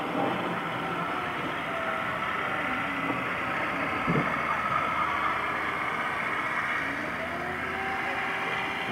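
Two dull booms about four seconds apart from the distant exploding ammunition depot, over a steady engine-like rumble.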